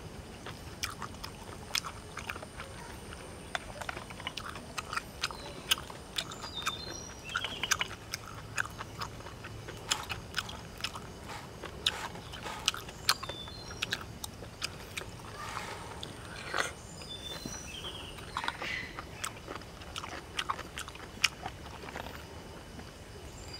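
Close-up eating of grilled freshwater snails: chewing, with irregular sharp clicks and light scraping as a bamboo stick picks the meat out of the shells and the shells knock together.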